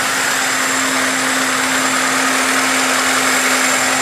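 VAZ-2103 four-cylinder petrol engine idling steadily at operating temperature after a rebuild, with an even hum and no changes in speed.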